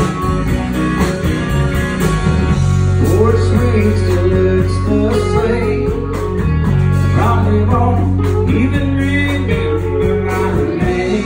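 Live country-rock band playing: electric guitars and drums with a strong bass line, and a man singing over it from about three seconds in.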